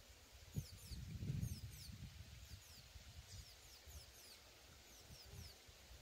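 Faint songbird song: a scatter of quick, thin, high notes, each sliding down in pitch, with a low rumble about a second in.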